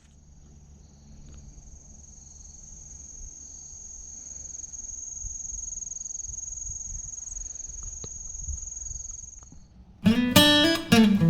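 Insects making one steady, high-pitched buzz with a faint low rumble beneath it; the buzz fades out just before acoustic guitar music strums in near the end.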